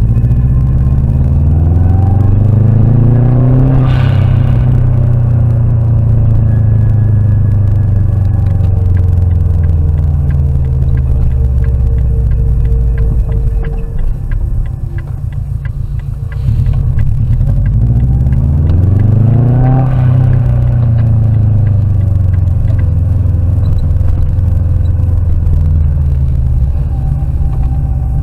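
Car engine and road noise heard inside the cabin through a dashcam's built-in microphone. The engine revs up over the first few seconds, settles, goes quieter for a couple of seconds around the middle, then revs up again near twenty seconds before easing off.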